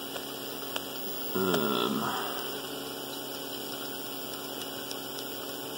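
Steady low electrical hum over a background hiss. A brief murmured vocal sound comes about a second and a half in, and there are a couple of faint clicks.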